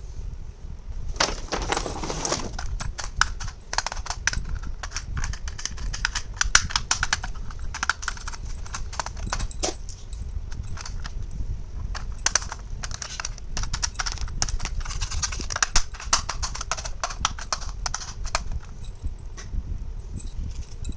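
Small plastic toy kitchen pieces being handled, with rapid irregular clicks and taps. A brief rustle comes about a second in.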